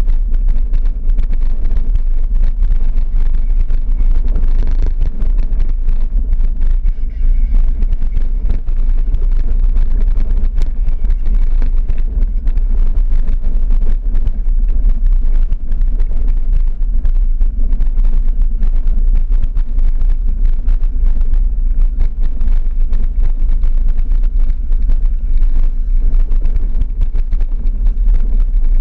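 Off-road vehicle's engine and tyres rumbling steadily along a rough dirt track, heard from inside the cabin, with frequent small knocks and rattles from the bumps.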